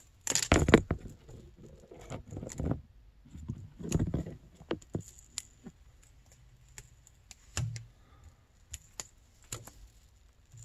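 A thin adhesive-backed heating-element strip being peeled off a handlebar by hand: irregular crinkling and tearing rustles, loudest about half a second in, with a few sharp clicks near the end.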